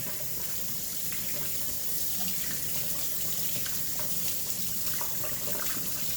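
Kitchen tap running steadily into a sink while a raw whole chicken is rinsed under it, with small splashes and clicks as the water hits the bird.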